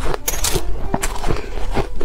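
Ice crunching close to the microphone: an irregular run of sharp cracks and crackles.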